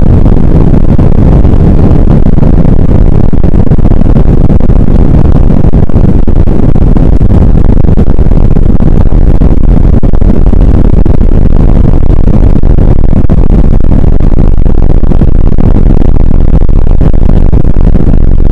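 Airbus A320 cabin noise at a window seat while the airliner moves on the ground: a loud, steady, low rumble from its engines and rolling wheels.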